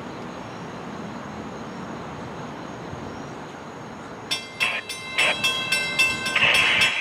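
Steady rumble of a train. About four seconds in, a grade-crossing bell starts ringing rapidly and loudly.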